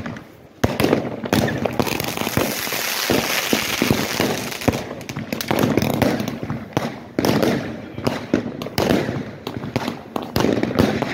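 Fireworks and firecrackers going off in rapid, irregular bangs and pops, with a dense hissing crackle about two to four seconds in.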